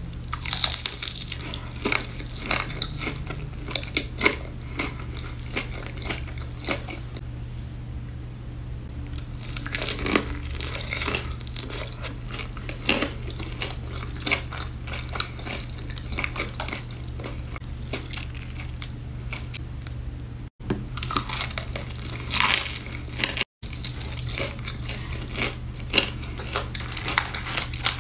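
Biting and chewing crispy breaded fried chicken tenders: the crunchy coating crackles in clusters of sharp crunches with quieter chewing between. A steady low hum runs underneath, and the sound cuts out briefly twice.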